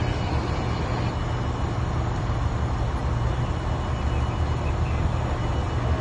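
Parked fire trucks' diesel engines running, an even low rumble with no breaks.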